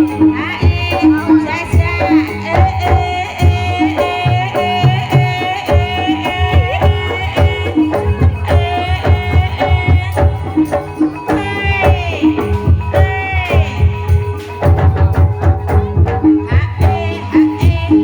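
Javanese gamelan-style ensemble playing ebeg dance accompaniment. Rapid hand-drum strokes run over repeated pitched percussion notes, with a wavering melody on top.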